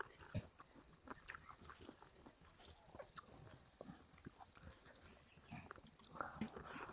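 Close-miked eating sounds: soft, irregular chewing, lip smacks and mouth clicks from someone eating a meal of pork curry. They are a little busier near the end.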